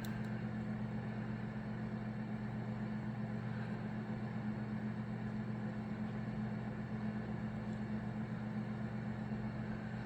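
Steady, even low hum of a running machine or motor, with no change in pitch or level.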